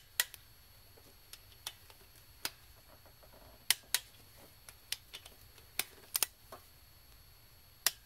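Sharp metal clicks from a small click-type torque wrench and socket as fuel rail bolts are tightened to 18 foot-pounds: single clicks at uneven intervals, some in quick pairs, each click marking a bolt reaching its set torque or the ratchet being worked.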